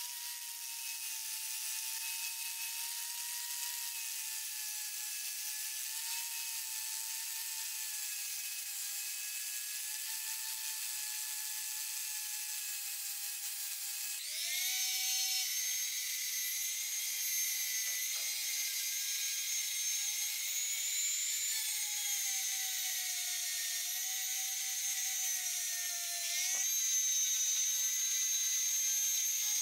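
Electric angle grinder with an abrasive disc grinding the metal body of a pneumatic nailer, its whine dipping and rising with the pressure. Near the end it gives way to the higher, louder whine of a small electric rotary tool with a grinding stone.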